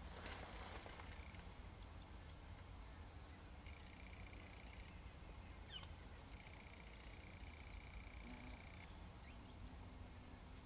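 Faint outdoor ambience with a soft low rumble. A faint, evenly pulsing trill comes twice, each lasting a second or more, with a few short faint chirps between.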